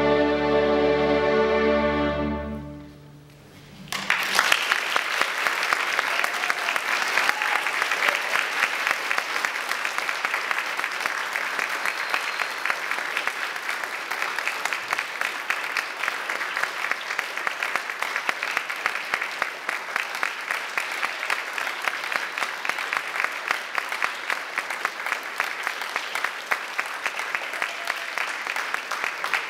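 String orchestra and viola soloist hold the closing chord of the concerto's first movement, which dies away about two and a half seconds in. After a brief hush, audience applause breaks out about four seconds in and keeps going.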